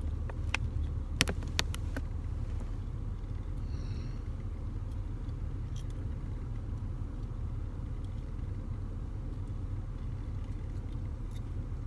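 A few sharp small clicks and taps in the first two seconds as the shift knob's small metal parts and Allen wrench are handled, over a steady low rumble.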